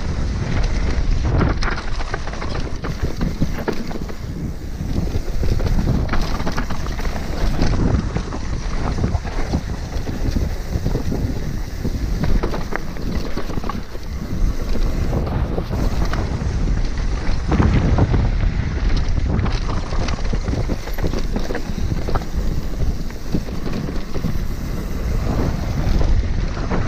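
Mountain bike descending a dirt trail at speed: wind buffeting the microphone over the tyres rolling and crunching on dirt and loose rock, with many small knocks and rattles from the bike.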